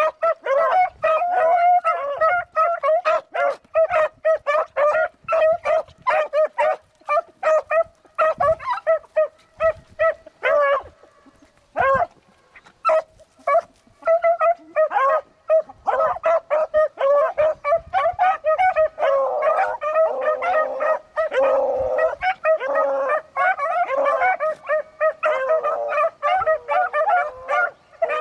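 A pack of beagles baying in rapid short calls as they work a rabbit's scent trail, the cry that hounds give when they are on the line. The calls thin out briefly about halfway, then several dogs call over one another toward the end.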